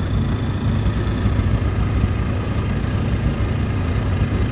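Boat engine running steadily at low speed: an even, low hum.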